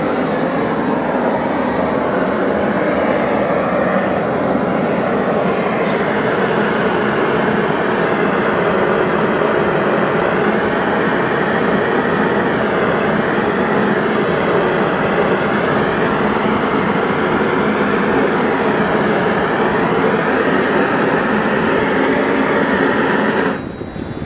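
Handheld gas torch burning with a steady rushing noise as its flame heats a glass cane being pulled; the noise cuts off abruptly near the end.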